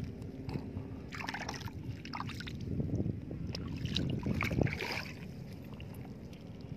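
Shallow water among shoreline rocks sloshing and trickling as a hand searches the pools for sea snails, over a low steady rumble with scattered small clicks.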